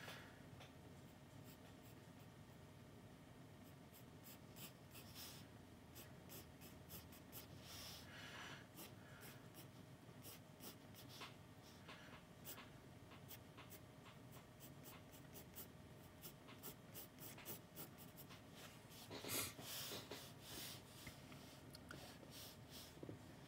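Pencil scratching on sketchbook paper, faint: many short, quick strokes, with a longer, louder stretch of scratching near the end.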